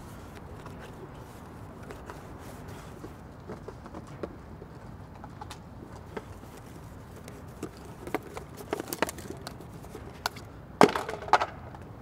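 Scattered light clicks and knocks over a steady background hiss, coming thicker about eight seconds in, then a louder cracking knock about a second before the end.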